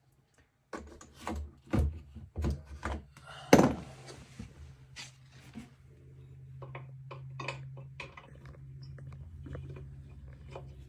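Socket wrench clinking and knocking against the faucet fittings under a bathroom sink, irregular clicks with one loud knock about three and a half seconds in. Lighter ticks continue over a low steady hum from about halfway.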